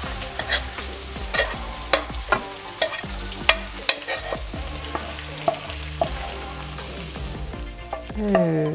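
A metal spoon scraping and clinking against a frying pan and a stainless-steel bowl as cooked food is scraped out of the pan, in irregular sharp clinks and scrapes over a steady low hum. Near the end a wooden spatula scrapes a second pan.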